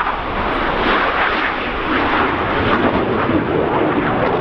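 Four F-16 Fighting Falcon jets flying past in formation: a loud, steady jet roar.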